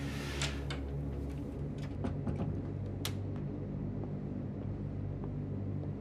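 A steady low hum with a short rustle at the start and a few scattered clicks and knocks, the sharpest about three seconds in.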